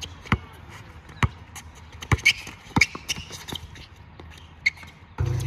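A basketball being dribbled on a court: sharp, irregular bounces about once a second, with a few short high squeaks between them. A steady low hum comes in abruptly just before the end.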